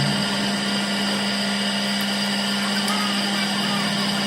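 Electric motor of a power tool running steadily: a constant hum with a high whine over it.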